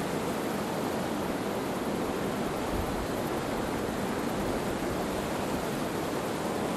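A shallow stream running over stones: a steady, even rush of water.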